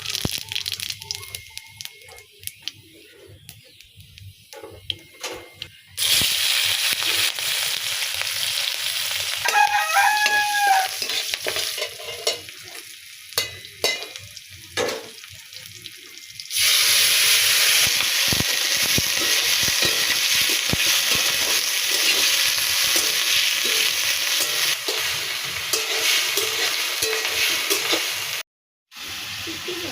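Food frying in hot oil in a pan and being stirred: scraping and clicks at first, then a loud steady sizzle that starts about six seconds in and grows louder again past the middle.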